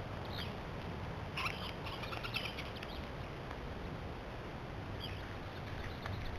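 A few faint, high chirps of small birds, clustered about one and a half to two and a half seconds in, over a steady outdoor background hiss.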